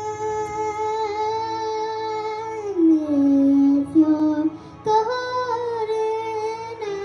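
A high voice holding long sung notes to a karaoke song. It glides down to a lower note partway through and rises back up near the end.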